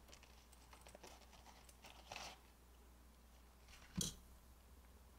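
Faint handling of a faux-leather wallet: soft rustles of its pockets and contents, a slightly louder rustle a little past two seconds in, and a short knock about four seconds in.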